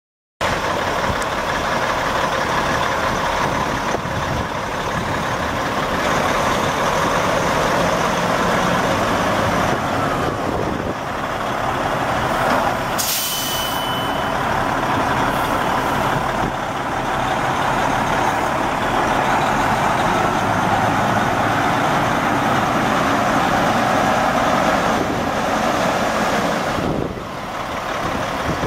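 Detroit Diesel Series 60 12.7-litre straight-six turbo diesel in a Kenworth T800 semi truck idling steadily. About halfway through there is a short hiss of released air.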